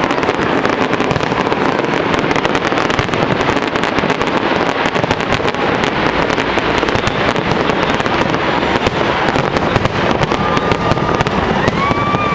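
Fireworks display going off in a rapid, continuous barrage of bangs and crackles. A couple of brief whistling tones sound near the end.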